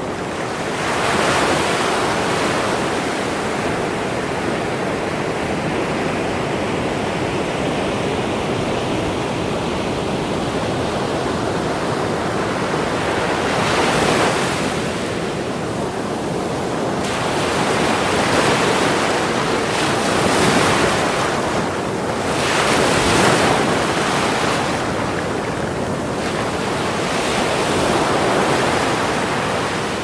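Ocean waves breaking on a beach: a continuous rush of surf that swells as waves crash, about a second in, midway through and several times in the second half.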